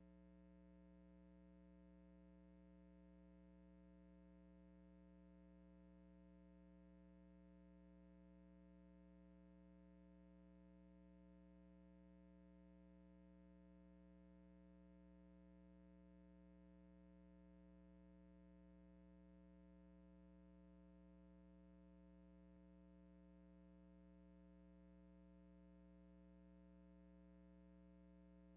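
Near silence with only a faint steady hum that does not change.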